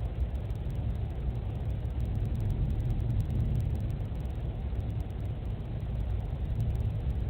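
Steady low rumbling noise with no distinct events, heard through a home security camera's microphone.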